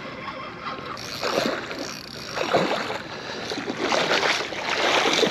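A hooked striped bass thrashing and splashing at the water's surface as it is brought in on the line, in several surges, the longest about four seconds in.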